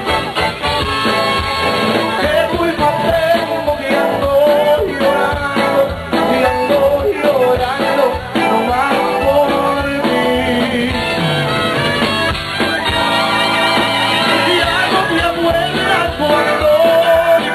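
Tejano oldies song playing, with singing over a band.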